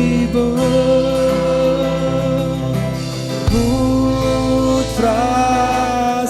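Worship music: sustained keyboard-style chords with a singing voice holding long notes, the chord changing about three and a half seconds in.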